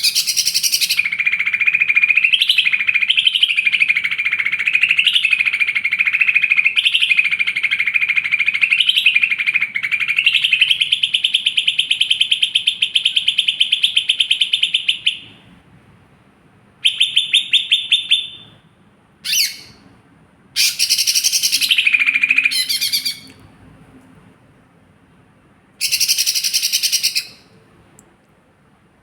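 Green leafbird (cucak ijo) singing: a long, unbroken run of fast trilled phrases for about fifteen seconds, then shorter bursts of song separated by pauses of a second or more.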